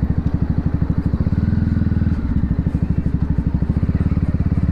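Voge 300 Rally's single-cylinder engine running at low revs, a steady rapid beat of firing pulses.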